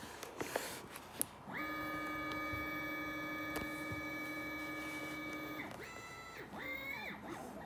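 Bare stepper motors driven by an offline CNC controller running a test file. They make a steady pitched whine that starts about a second and a half in and holds for about four seconds. Then it breaks into short rising and falling whines as the motors reverse, moving in both directions as they should. A few clicks come in the first second.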